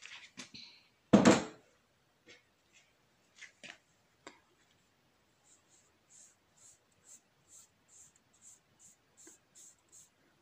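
A single loud knock about a second in, then fingertips rubbing a cloth wax strip pressed onto the eyebrow: soft, high brushing strokes about twice a second from about halfway.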